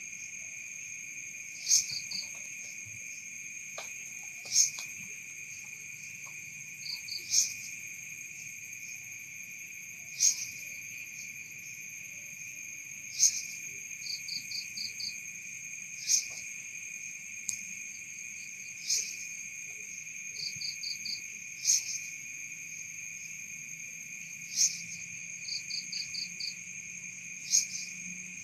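Night insects calling. One keeps up a steady high trill. Over it, a sharp chirp repeats about every three seconds, several of them followed by a quick rattle of four or five clicks.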